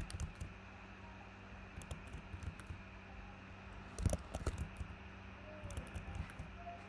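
Computer keyboard keystrokes, scattered in small clusters, with the loudest group about four seconds in, over a faint steady hum.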